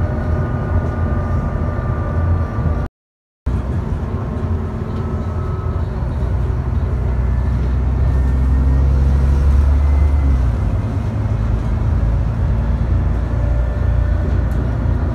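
ADL Trident double-decker bus running under way, heard inside the cabin: a steady low engine rumble with a faint whine at the start, growing heavier as it pulls harder for a few seconds around the middle. The sound drops out completely for about half a second about three seconds in.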